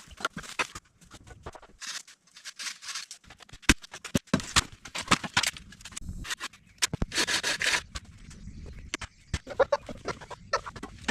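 Sticks and twigs being handled and set in place: irregular clicks, knocks and scrapes, with a longer scraping rush about seven seconds in.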